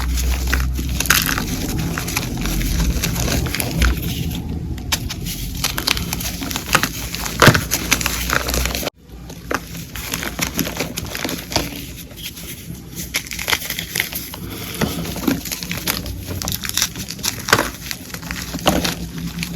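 Pieces of coloured gym chalk crunching and crumbling as they are crushed, a dense irregular run of crunches with a brief break about nine seconds in.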